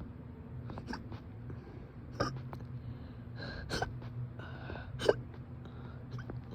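A person hiccuping four times, short sharp hiccups about every second and a half, the last the loudest, in a persistent bout of hiccups.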